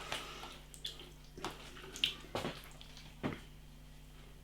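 Quiet, wet mouth sounds of someone eating spicy instant noodles: about six small clicks and smacks spread out at irregular intervals.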